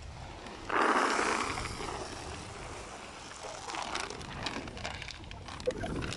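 Dry dog kibble poured from a large plastic sack into a cardboard box: a sudden rush of rattling pellets starts about a second in and tapers off, followed by quieter rustling of the sack and a few clicks.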